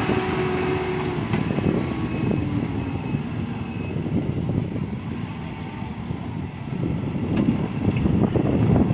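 Diesel engines of construction machinery running, a low, uneven rumble that grows louder near the end.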